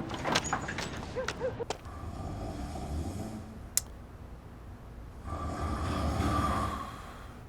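A man snoring: two long snores about three seconds apart, with a few clicks before the first.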